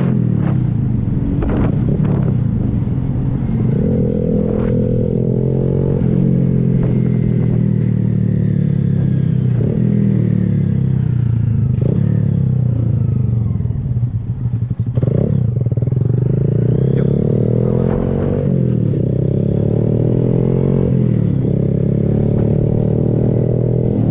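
Honda Grom's 125 cc single-cylinder engine running through an aftermarket Kemimoto exhaust while riding, the revs rising and falling as it pulls and eases off.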